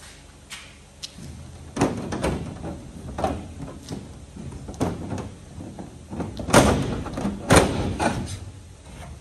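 Irregular knocks and clunks of hands and tools working on a kit aircraft's riveted aluminium fuselage, about a dozen in all. The two loudest bangs come about a second apart near the end.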